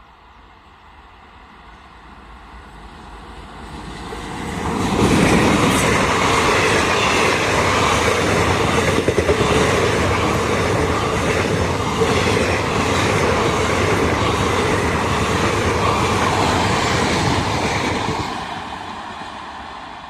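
Train passing close by at speed: wheels clattering rhythmically over the rails. The sound swells over the first few seconds, stays loud from about five seconds in, and fades after about eighteen seconds.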